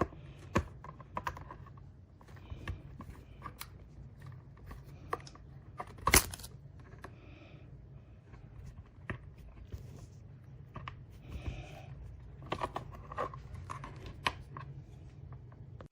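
Plastic case of a Seagate Backup Plus hub hard drive enclosure being pried apart by hand: scattered clicks, creaks and scrapes of its plastic clips, with one sharp, loud snap about six seconds in.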